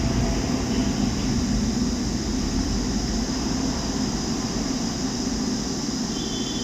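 Hot-air rework station blowing steadily on a laptop motherboard while a jumper is being desoldered.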